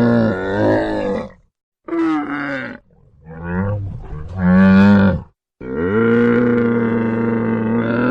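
Camel bellowing: several short, wavering calls broken by brief gaps, then one long call held at a steady pitch from about two-thirds of the way in.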